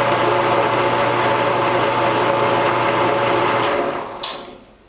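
Shop Fox W1848 floor drill press running on its first test run: a steady motor hum with belt and spindle whir. Near the end it dies away as the spindle winds down.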